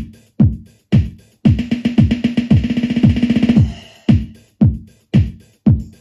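Boss DR-3 Dr. Rhythm drum machine playing its Techno 1 preset pattern. A deep kick that drops in pitch hits about twice a second, with a dense run of fast hits and cymbal-like hiss from about a second and a half in to about three and a half seconds, then the kick alone again.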